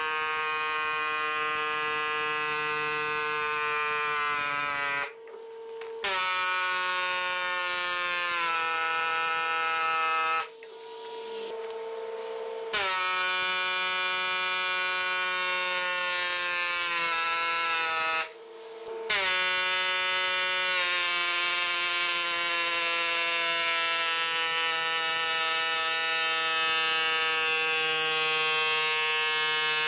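Pneumatic air hammer buzzing as it drives a copper ground rod into the ground through a socket fitted over the rod's end. It stops briefly three times, and each time it restarts its pitch sags a little before levelling off.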